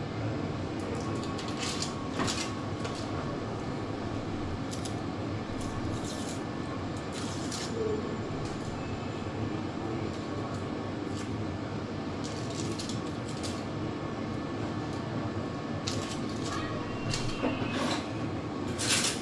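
Cheese being grated, heard as short runs of scraping strokes over a steady background hum.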